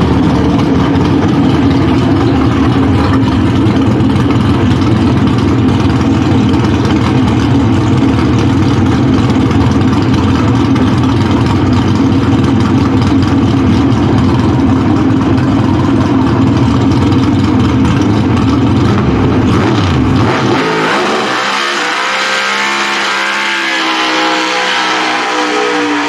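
A Pro Stock Camaro's 500-cubic-inch fuel-injected V8 runs loud and steady. About twenty seconds in, the sound changes to a more distant engine whose pitch rises and falls as it revs through a burnout.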